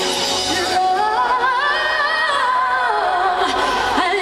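Live concert music over a stage sound system: a singer holds long, wavering notes over the band.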